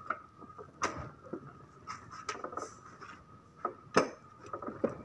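A few sharp, light clicks and knocks over a quiet background, the loudest about a second in and about four seconds in.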